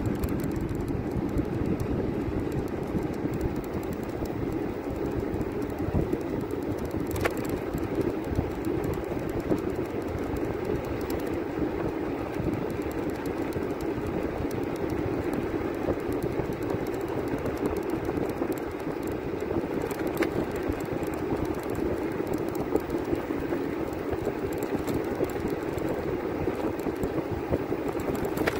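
Steady rumble of road and wind noise from a moving vehicle travelling along a road, with a couple of faint clicks.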